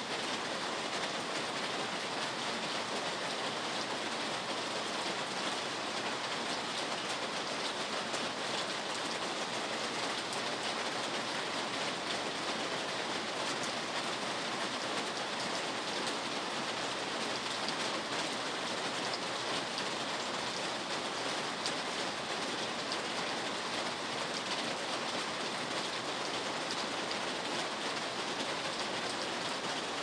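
Steady rain falling on hard surfaces, an even, unbroken hiss that holds the same level throughout.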